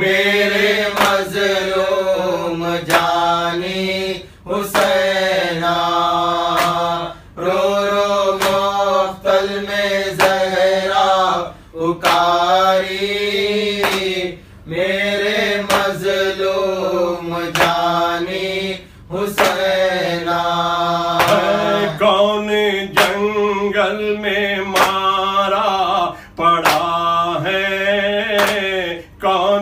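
A noha, a mournful Urdu lament for Imam Husain, chanted in long melodic phrases broken by brief pauses for breath.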